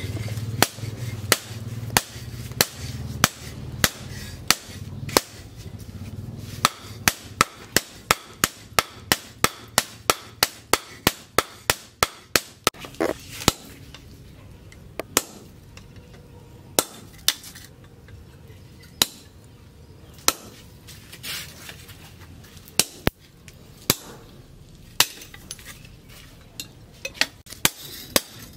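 Hammer striking steel on an anvil: a run of sharp, ringing blows about two a second, forging a machete blade from plough-disc steel. The blows thin out with short pauses in the second half, and a low hum sits under the first several seconds.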